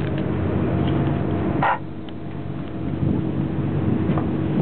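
Tour boat's engine running with a steady hum under the rush of the boat. A brief sharp noise comes about one and a half seconds in, after which the overall sound is somewhat quieter.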